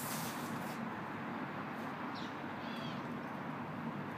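Steady outdoor background hiss, with a gym mat scraping over concrete in the first second and a bird chirping a few times about two seconds in.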